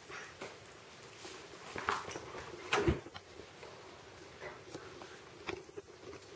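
Husky puppy and ferret scuffling in play: scattered soft thumps, scrapes and rustles of fur and paws on a cushion, with one heavier thump about three seconds in.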